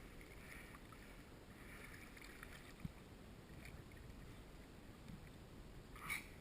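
Faint low rumble of wind and water, with a single sharp knock about three seconds in and a short high-pitched sound near the end.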